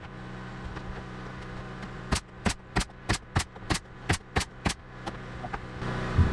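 Pneumatic nail gun firing about nine shots in quick succession, about three a second, to fasten a door panel down. A steady hum runs underneath and grows louder near the end.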